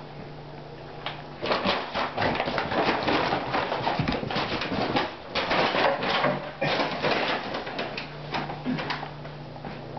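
A valley bulldog puppy and another dog play-fighting: scuffling and rustling with dog grunts. It is busiest from about a second and a half in until about seven and a half seconds, then quieter.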